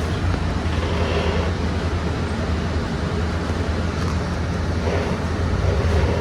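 Steady low drone of a city bus's engine and road noise heard from inside the cabin while the bus drives along.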